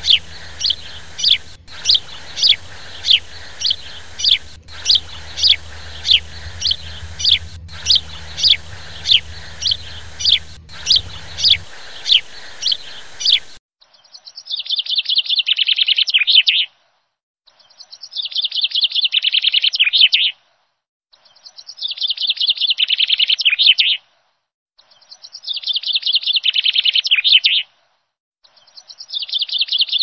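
Bird calls: a quick series of short, sharp falling chirps, about three a second, over a low hum. Then, after a break about 14 s in, bursts of rapid chattering a few seconds long, repeated five times with short silences between.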